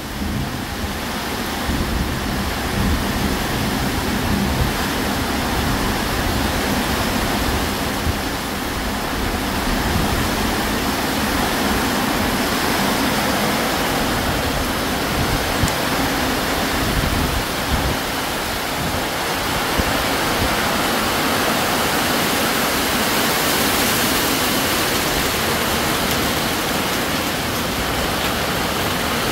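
Heavy tropical downpour: rain pouring steadily in a dense, even rush of noise.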